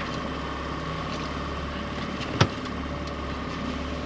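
Small boat's outboard motor idling steadily while the dinghy drifts. A single sharp knock comes about two and a half seconds in.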